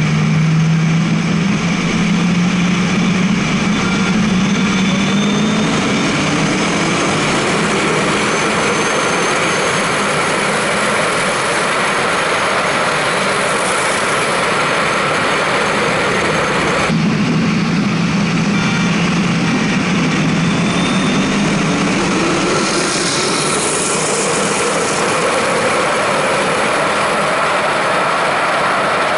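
Supercharged V8 muscle car running a hard rolling-start pull on a highway: the engine note holds steady, then climbs in pitch as it accelerates, over heavy wind and road noise. It happens twice, with an abrupt cut about halfway through.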